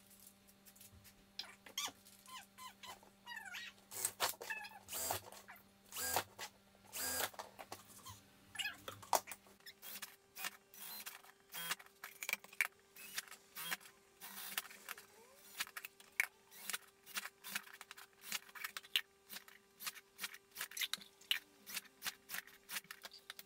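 Bosch 14.4 V cordless drill run in short bursts, drilling holes through the bottom of thin plastic plant pots, with many irregular clicks and knocks from the plastic and the pots being handled.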